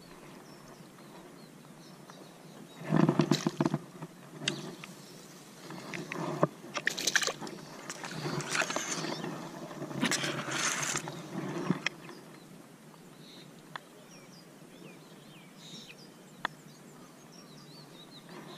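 Indo-Pacific tarpon splashing and thrashing in the shallows at the bank as it is landed by hand, in several noisy bursts, the loudest about three seconds in, with grass rustling against the angler. Quieter over the last few seconds.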